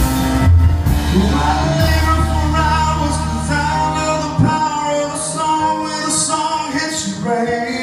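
Live country-rock band music: a full band playing, with a melodic lead line over a strong bass.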